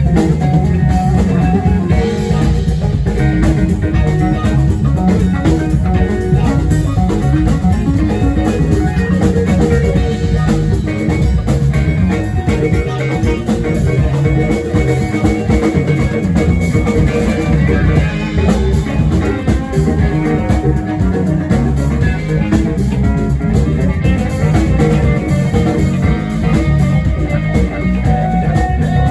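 Live rock band playing: electric guitars over drum kit, bass and keys, continuous and loud.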